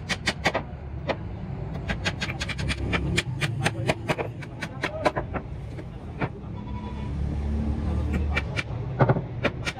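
Hammer driving steel nails through wooden planks: quick series of sharp taps that pause briefly about six seconds in, then start again. A steady low rumble runs underneath and swells about seven seconds in.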